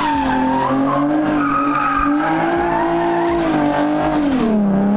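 A car's tires squealing continuously as it slides around in donuts, with the engine revving underneath. The squeal wavers in pitch and dips lower near the end.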